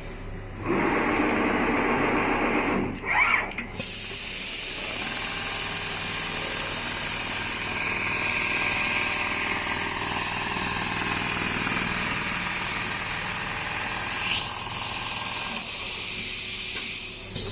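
Automatic large-panel sewing machine running: a dense, rapid mechanical rattle for the first few seconds, then a steady machine noise with hiss that fades out near the end.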